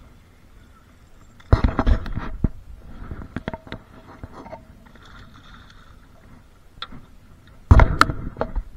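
A hooked catfish splashing and thrashing at the water's surface as it is reeled in. There are two loud bursts of splashing, about a second and a half in and again near the end, with lighter splashes and clicks between.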